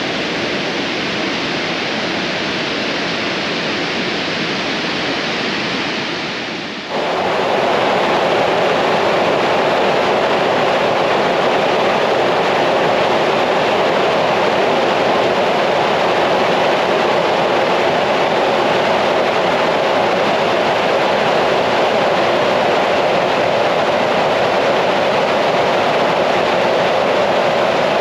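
Steady rush of falling water from a waterfall; about seven seconds in it cuts to a louder, deeper-sounding torrent.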